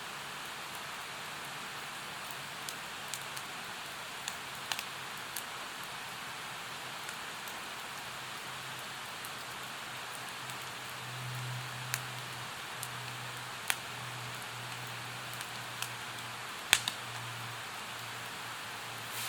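Steady rushing of a mountain stream, with sharp crackles and pops from a wood campfire scattered through it; the loudest pop comes near the end.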